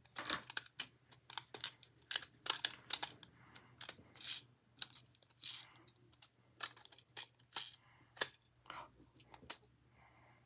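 Irregular series of light clicks and taps.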